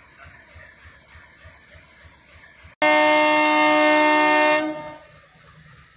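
Diesel locomotive air horn: one long, loud blast of about two seconds starting abruptly halfway through, then dying away. Before it, a low diesel engine rumble.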